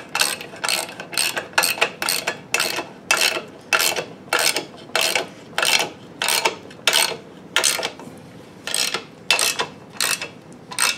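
Hand ratchet wrench running down a motor-mount bolt: a rapid burst of ratchet clicks with each swing, about two strokes a second, with a short pause about eight seconds in.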